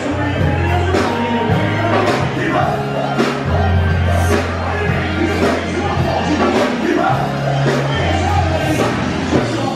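Live party band playing, with singing over a bass line of long held notes.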